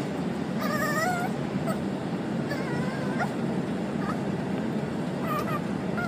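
Small Chihuahua making high, wavering whimpers: a long warbling whine about a second in, another around the middle, and a few short squeaky yips near the end.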